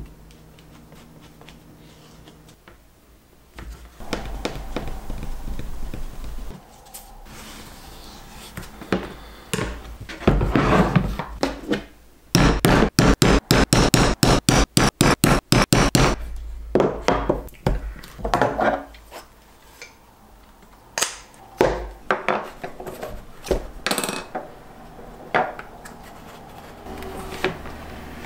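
A leather maul striking a metal punch through leather on a rubber punching board: a rapid run of strikes, about five a second for nearly four seconds, with scattered single knocks before and after.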